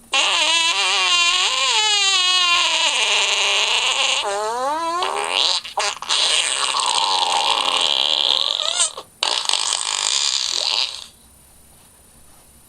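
A long, loud fart sound that starts suddenly. For about five seconds it is a buzzy flutter with a wobbling pitch that rises near the end of that stretch; then it turns harsher and hissier, with two brief breaks, and it stops about eleven seconds in.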